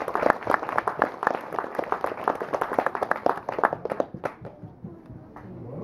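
Audience applauding, a dense patter of hand claps that thins out and dies away about four seconds in.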